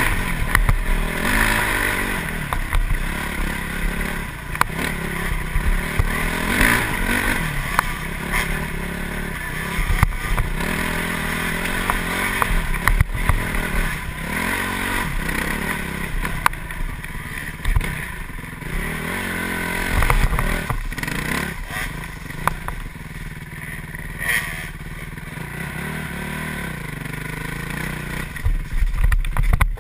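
Dirt bike engine running on a rough trail, revving up and falling back again and again as the throttle is worked, with clattering knocks from the bike over bumps and wind rumble on the helmet-mounted microphone.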